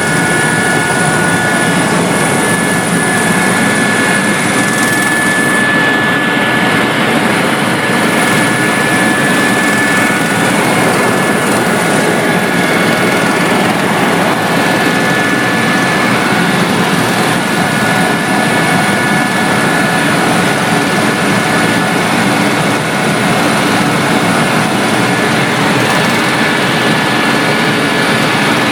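Helicopter in flight: steady rotor and engine noise with a constant high whine, without let-up.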